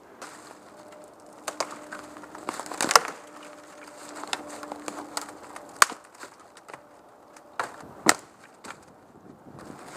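Dry sticks and branches snapping and cracking as firewood is gathered by hand, with rustling of leaves and twigs between the snaps. There are several sharp cracks, the loudest about three seconds in, and others near six and eight seconds.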